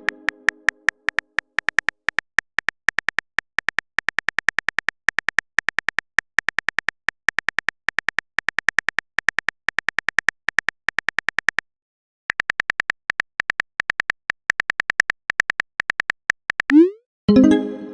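Simulated phone-keyboard typing sound from a chat-story app: a fast, uneven run of short high ticks, one per keystroke, with a brief pause about twelve seconds in.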